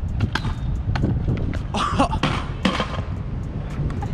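Freestyle scooter rolling on asphalt with a low rumble, then a string of sharp clacks and knocks as the rider bails and the scooter clatters on the ground. The loudest knock comes about two seconds in, with a short shout around the same moment.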